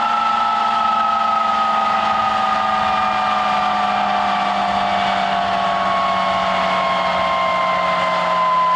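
Avro Vulcan XM655's Rolls-Royce Olympus jet engines running loud and steady, their whine slowly falling in pitch.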